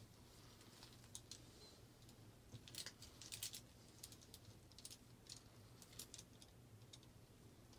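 Faint scattered clicks and light taps from gloved hands handling a wet tie-dyed shirt and its clamp on a wire drying rack, over a low steady hum.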